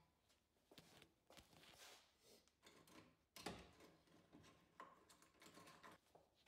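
Near silence with faint scattered clicks and taps, and one louder knock about halfway through.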